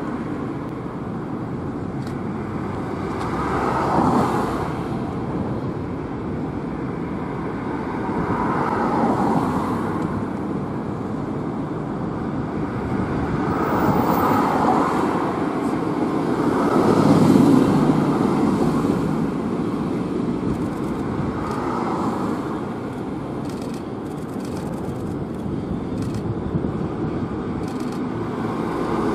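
Road traffic noise, with vehicles swelling past every few seconds, over the running of a container freight train that an EF65 electric locomotive hauls slowly toward the microphone.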